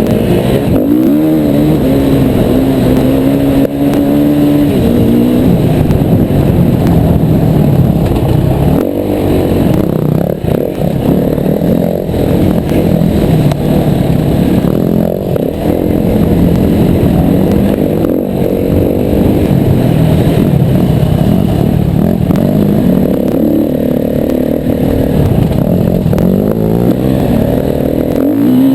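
Yamaha WR250R single-cylinder four-stroke dirt bike engine running hard off-road, its pitch rising and falling over and over as the throttle opens and closes.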